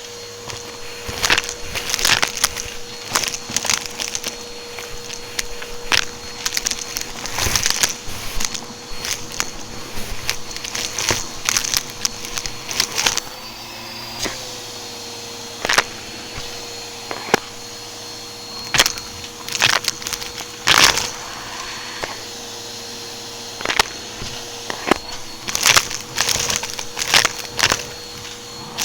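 Vacuum cleaner running with a steady motor whine while it sucks up crunchy debris from a rug in many short, crackling bursts; the motor pitch dips briefly about halfway through.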